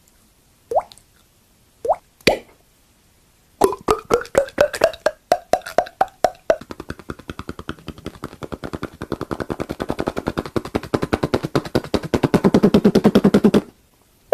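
Mouth-made sound effects: a few separate pops that rise in pitch like water drops, then from about three and a half seconds a quick run of pitched pops. This turns into a long, fast, even rattle that grows louder and cuts off suddenly just before the end.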